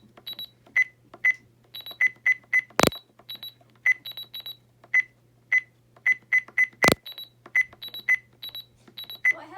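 Short, high electronic beeps at an uneven pace, more than two dozen in all, with two sharp knocks about three and seven seconds in, over a steady low hum.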